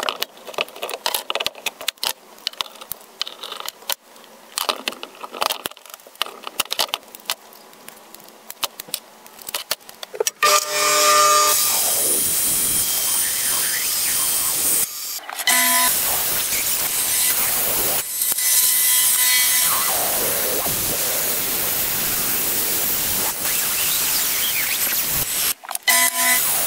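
Scattered clicks and knocks for about the first ten seconds, then a Clarke Woodworker band saw starts up and runs steadily while cutting a workpiece, with a couple of brief breaks.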